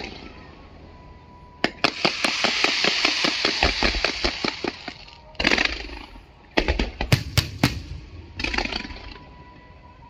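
Aerial fireworks: a sharp bang, then about three seconds of hissing with a fast, even crackle from bursting shells. A burst and a quick run of sharp reports follow about seven seconds in, then another short hiss near the end.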